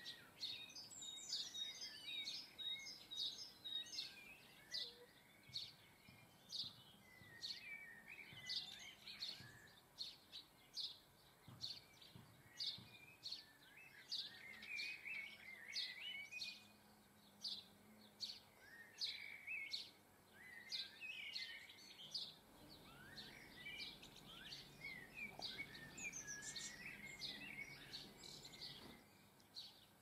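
Garden birds chirping and twittering, faint: a steady run of short, sharp chirps about one or two a second, mixed with lower twittering phrases, picked up by a bird-feeder camera's microphone.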